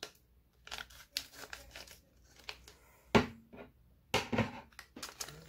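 Black plastic blind bag crinkling as it is handled and cut open with scissors, with a sharp click about three seconds in.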